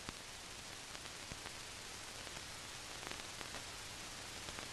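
Steady hiss of an old film soundtrack, with scattered faint clicks and pops.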